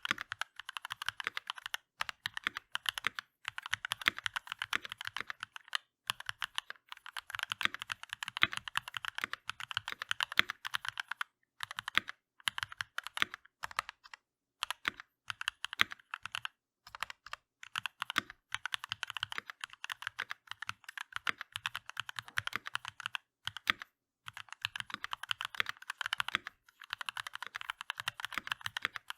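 Keychron V1 mechanical keyboard with DCX keycaps being typed on quickly: fast, continuous keystroke clicks with short pauses every few seconds, and now and then a deeper stroke, likely the spacebar.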